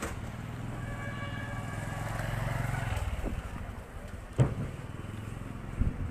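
A vehicle engine running steadily, growing a little louder about two to three seconds in, with two sharp knocks in the second half, the first the loudest.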